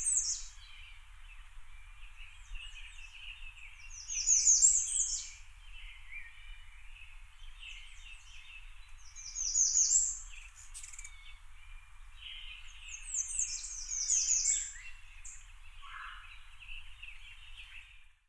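Forest birdsong: one bird repeatedly sings a loud, high, rapid series of descending notes, about every four to five seconds. Under it runs a steady chorus of quieter chirping from other birds. The sound cuts off abruptly near the end.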